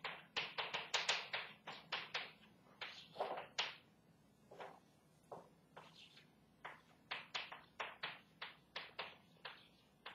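Chalk strokes tapping on a chalkboard as words are written: quick irregular runs of short sharp taps, thinning out for a couple of seconds in the middle.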